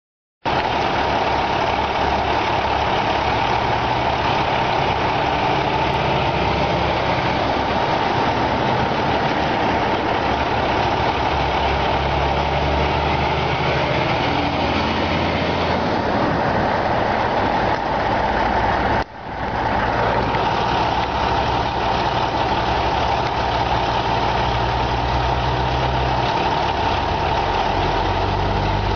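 Diesel engines of semi trucks running at low speed, a steady heavy rumble with slowly shifting engine notes. The sound breaks off for an instant about two-thirds of the way through.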